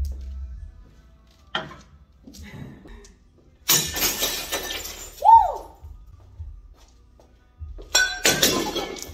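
Ceramic dishes thrown against a plywood wall and shattering: a light knock about a second and a half in, then a loud crash with pieces scattering near four seconds and another near eight seconds.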